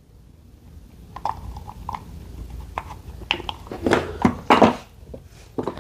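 Handling of a ride-on car's plastic gear-shift lever and its wiring connectors: scattered sharp clicks and short rustles as the plugs are tried in different orientations, a few louder ones about three to five seconds in.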